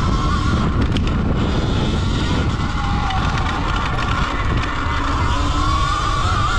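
Sur-Ron electric dirt bike's motor whining as it rides, the pitch dropping about five seconds in and climbing again as the rider gets back on the throttle. Under it, wind rushes over the microphone and the tyres and chassis rumble over the rough dirt trail.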